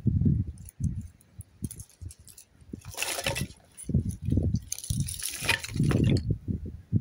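Split wooden kindling sticks rustling and clattering as they are set down from a wool blanket onto paving stones, in two spells, about three seconds in and again around five seconds in. Irregular low thumps and rumble run underneath.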